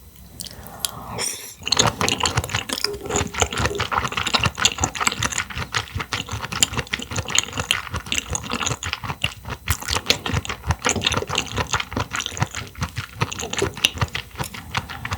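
Close-miked chewing, a dense, irregular run of wet mouth clicks and smacks.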